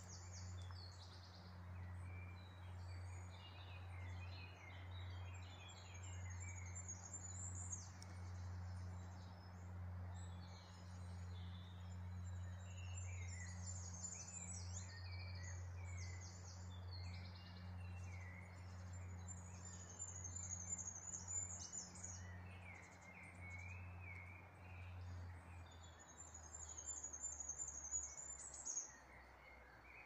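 Several small songbirds singing and calling, faint: rapid high trills of repeated notes and scattered chirps, over a steady low hum that drops away near the end.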